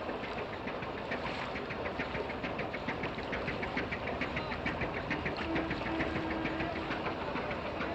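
Small boat engine chugging with an even, rapid ticking knock, about five or six a second, over a steady noise; a short low tone sounds in the second half.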